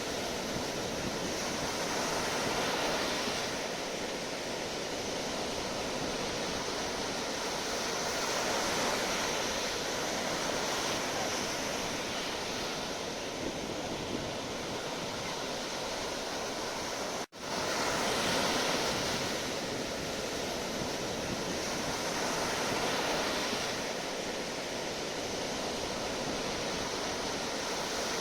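Sea waves: a steady rush of surf that swells and eases every few seconds, with a momentary cut-out about two-thirds of the way through.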